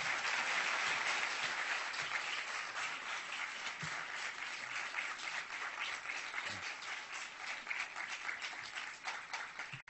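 Audience applauding, dense and steady at first and thinning slightly toward the end, then cutting off abruptly.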